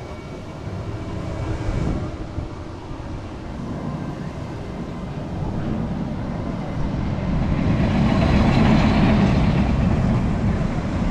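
Storm wind buffeting the microphone: a rumble that swells with a strong gust about eight seconds in, then eases slightly near the end.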